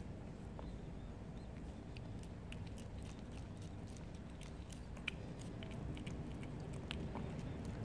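Calico cat chewing and lapping wet cat food, with many small wet clicks and smacks over a low steady background rumble.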